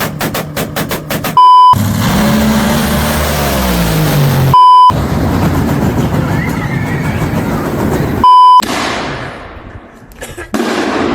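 Brief, loud beeps at one steady pitch, three of them, about a second and a half, four and a half and eight seconds in, cutting between short sound snippets. It opens on a fast, regular percussion beat; after the first beep comes a low pitched sound sliding down, then stretches of noise, the last fading away and swelling back near the end.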